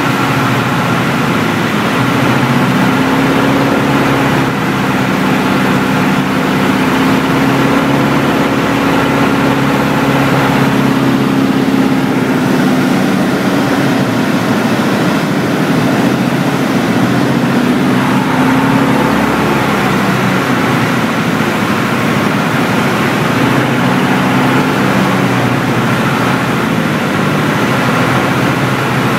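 Beagle Pup 150's four-cylinder Lycoming engine and propeller heard from inside the cabin in flight, running steadily, its pitch drifting a little up and down.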